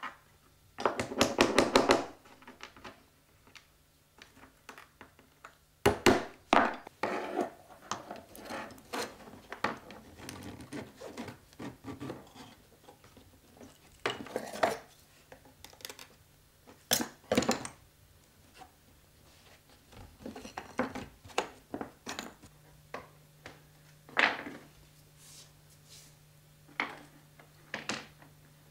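Clinks, taps and scrapes of glass pieces, lead came and hand tools on a wooden workbench as a stained-glass panel is leaded up. A quick run of rapid clicks comes about a second in, followed by scattered sharper knocks and clicks.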